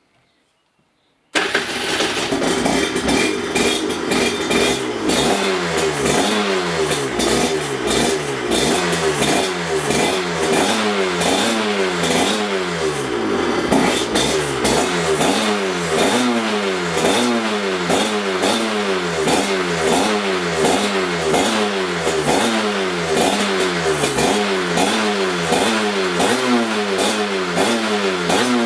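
Aprilia RS125's 125 cc single-cylinder two-stroke engine comes in abruptly about a second in, then is revved over and over in quick throttle blips, each rise in pitch falling back before the next.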